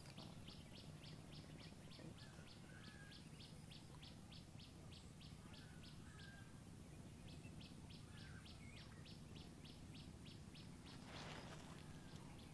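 Faint, rapid series of short high chirps from a bird, about three or four a second. It breaks off for a second around the middle and starts again, with a few softer, lower chirps in between.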